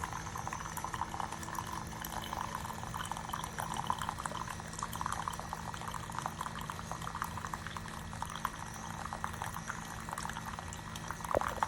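Keurig K-Mini single-serve coffee maker brewing: a steady low hum from the machine while coffee streams and sputters into the cup.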